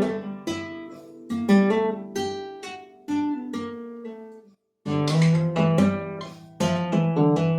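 Solo acoustic guitar playing plucked chords and melody notes that ring and die away, with a brief full stop about four and a half seconds in before the playing picks up again.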